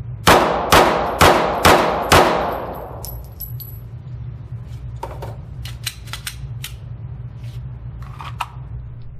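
Five 9mm shots from a Glock 19 pistol at an indoor range, about two a second, each echoing off the range walls. A few fainter clicks and knocks follow, over a steady low hum.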